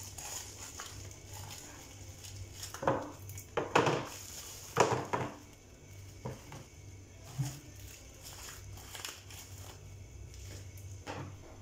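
Plastic packets crinkling as they are opened and dried smoked fish is shaken out into a plastic tub, with a few sharper crackles and knocks between about three and five seconds in.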